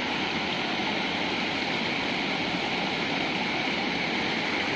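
Steady rush of river water pouring over a low rock ledge in a small waterfall, a swift, clear current.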